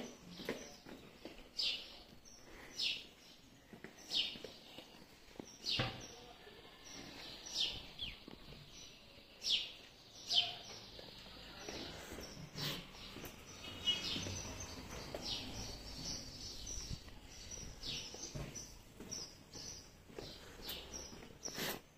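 Footsteps of someone walking on stone paving, with short high squeaks a second or two apart over a low background hum.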